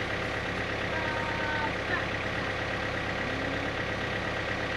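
John Deere 110 tractor-loader-backhoe engine running steadily, an even drone with no change in speed.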